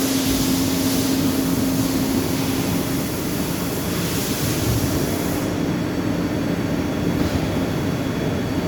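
DMG Gildemeister CTX 310 eco CNC lathe running, a steady machine hum with a high hiss over it that drops away about five and a half seconds in.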